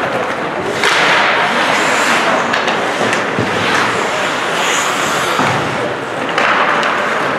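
Ice hockey skates scraping and carving on the ice, with the scraping swelling about a second in and again near the end, and a couple of dull knocks from sticks or puck in the middle.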